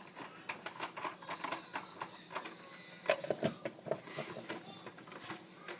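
Small irregular clicks and taps of hands working a nut and washer onto a screw through a plastic helmet ear, with the plastic parts knocking lightly.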